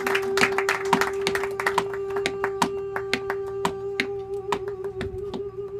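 Tap shoes striking a wooden dance board in a quick, uneven run of sharp taps that thins out toward the end, over a long held sung note that takes on vibrato about four seconds in.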